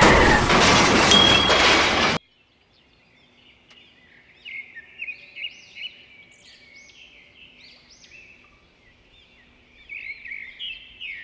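A loud explosion sound effect, a rush of noise that cuts off suddenly about two seconds in. After a short gap, birds chirp and twitter faintly with quick repeated calls.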